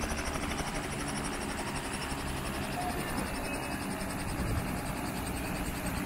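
Light two-bladed helicopter running on the ground with its main rotor turning: a steady engine and rotor noise with a rapid, even chop from the blades.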